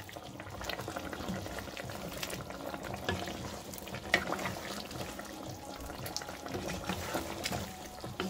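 Chicken curry sauce, thickened with potato flour, simmering in a pot on the stove, with scattered small pops and crackles as it bubbles.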